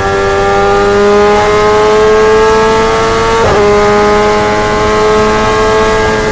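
Motorcycle engine held at high revs, its pitch climbing slowly. About three and a half seconds in there is a brief break in the tone, a quick gear change, after which the engine pulls on at a slightly lower pitch that gradually eases.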